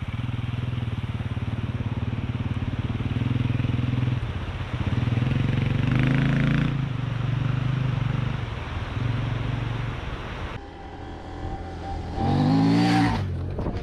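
Dual-sport motorcycle engine running as the bike rides away, its note rising and falling with the throttle. After a change near the end, a motorcycle comes close and goes by, its engine note rising and then falling.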